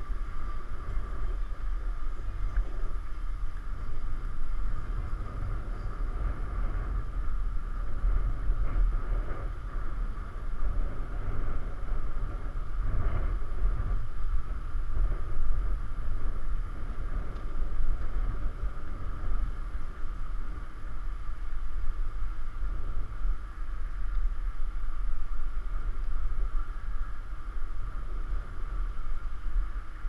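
Wind buffeting a bike-mounted GoPro's microphone while cycling, over the low rumble of tyres rolling on a brick-paved path, with a steady mid-pitched hum underneath.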